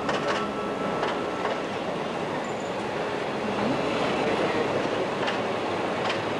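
Passenger train running over a wooden trestle viaduct, heard from an open carriage window: a steady rumble of wheels on rails with a few scattered clicks of the rail joints.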